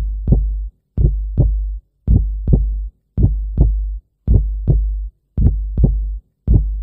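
Slow, deep heartbeat sound effect: paired lub-dub thumps about once a second, each pair trailing a low rumble that fades before the next.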